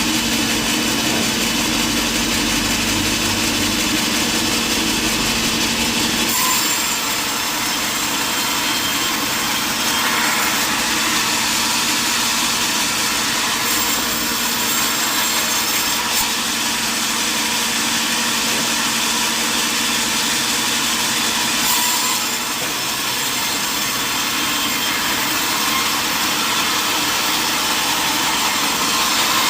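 Sawmill saw cutting through mahogany wood: a steady, loud rasping noise over a running motor. The motor's low hum drops out about six seconds in.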